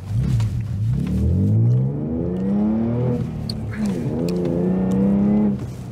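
Ford Mustang's 3.7-litre V6, fitted with an aftermarket exhaust, accelerating hard from a standstill in a timed launch. The engine note climbs, drops twice as gears are changed, holds steady, then falls away near the end as the throttle closes.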